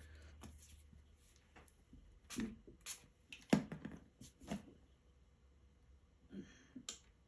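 Scattered light taps and clicks of a paintbrush working paint on a palette, a handful of short sounds clustered in the middle and a couple more near the end, over a faint low hum.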